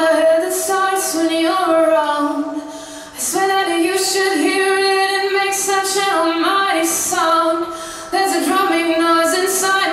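Recorded music with women's voices singing in layered, held notes that step in pitch, with short hissy accents above them; the music thins out briefly about three seconds in and again just before eight seconds.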